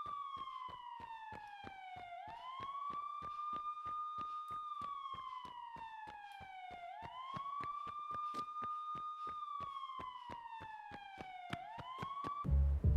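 An emergency-vehicle siren wailing. Each cycle glides slowly down in pitch for about two seconds, then sweeps quickly back up and holds, repeating roughly every four and a half seconds over fast, even clicks. It cuts off suddenly about half a second before the end, as louder low-pitched music starts.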